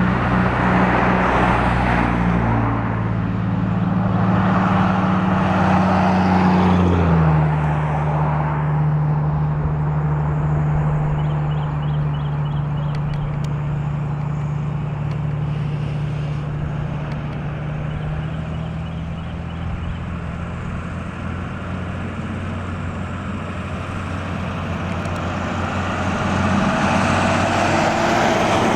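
Freight diesel-electric locomotives, a BNSF SD70ACE leading an ET44C4, running at full throttle as they pass. Their low engine drone drops in pitch about seven seconds in as they go by, then slowly fades as the train rolls on.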